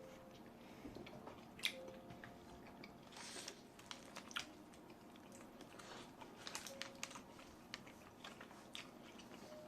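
Faint mouth sounds of eating: chewing with irregular small crunches and wet clicks, the sharpest crunch about one and a half seconds in.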